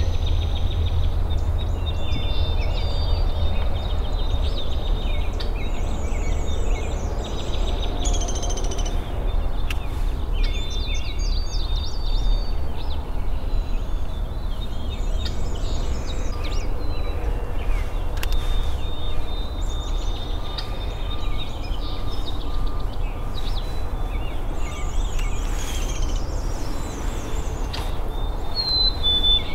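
Several birds singing and calling over one another with chirps and trills, over a steady low rumble. Near the middle comes a run of evenly spaced short notes.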